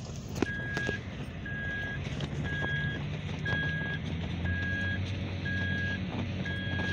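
Toyota 4Runner's in-cabin warning chime beeping steadily about once a second, over the engine pulling under load up a steep hill, its hum growing stronger a couple of seconds in. A single knock about half a second in.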